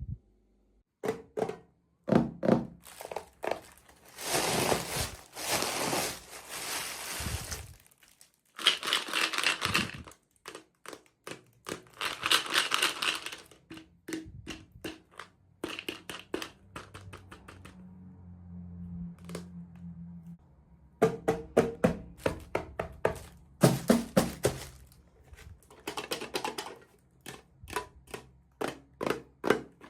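Plastic packaging crinkling and tearing in several long stretches, between many small clicks and taps of plastic pieces being handled.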